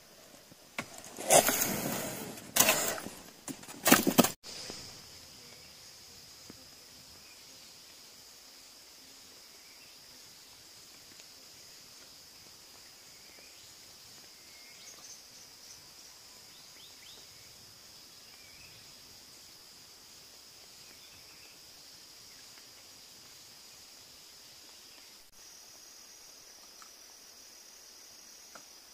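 Insects droning steadily in a high, even band, with a few loud, brief noise bursts in the first four seconds.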